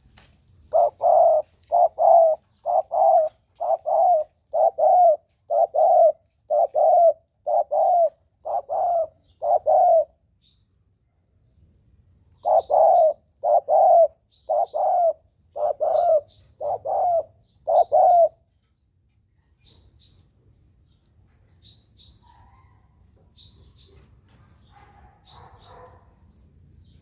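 Spotted dove giving runs of short, evenly repeated coos, about one and a half a second, in two bouts with a pause of a couple of seconds between. From about halfway in, a sunbird adds high, quick double chirps about once a second, which carry on alone after the coos stop near the two-thirds mark.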